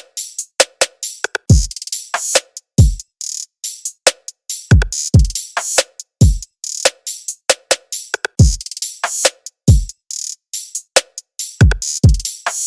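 Electronic drum loop repeating a steady beat: deep kick drums that slide down in pitch, with snare-like hits and crisp hi-hat ticks between them.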